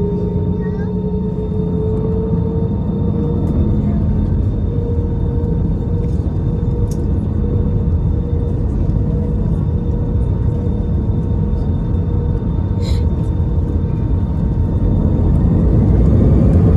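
Airbus A320 heard from inside the cabin: a steady low rumble with a steady engine whine that rises slightly in pitch at first, the whole sound growing louder over the last few seconds.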